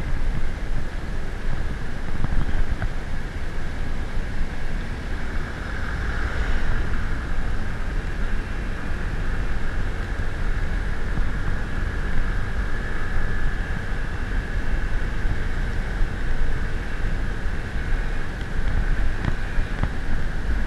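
A vehicle on the move: a steady engine and road rumble under heavy wind buffeting on the microphone.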